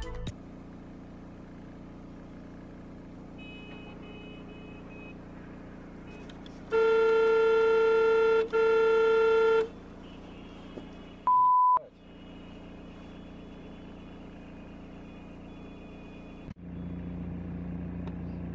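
A car horn honks twice, a long blast and then a shorter one, over the steady hum of a car driving. A few seconds later comes one short, high, pure beep.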